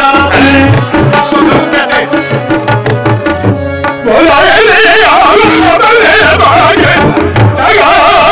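Tabla and harmonium playing together, the tabla strokes in a steady rhythm over held harmonium notes. About four seconds in, a singer's voice comes in loud over them in wavering, heavily ornamented lines.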